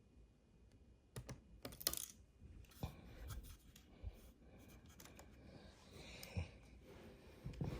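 Small screwdriver and tiny screws clicking and scraping against a laptop's display frame as the screen's mounting screws are fitted, in scattered light taps.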